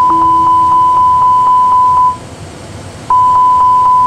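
Airbus A320 simulator's cockpit warning alarm: a steady high tone pulsing about four times a second, signalling the failure of both engines. It stops about two seconds in and starts again about a second later.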